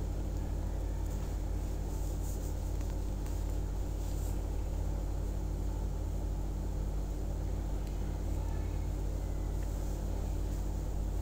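Steady low hum and rumble of background noise, even throughout with no distinct events.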